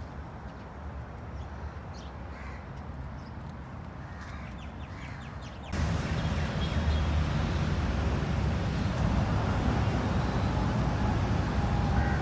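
Crows cawing faintly a few times over a low steady outdoor noise. About six seconds in, the sound cuts abruptly to a louder rumbling noise.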